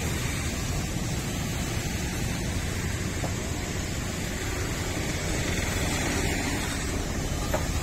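Steady outdoor background noise: an even low rumble with hiss and no separate events, the kind left by wind and road traffic.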